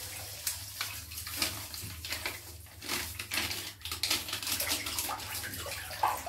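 Gelli Baff bath gel squelching and splashing in a bathtub as a child's hands move through it, in irregular wet slaps.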